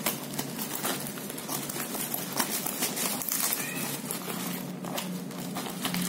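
Scissors cutting open a plastic courier mailer: a run of irregular sharp snips and clicks.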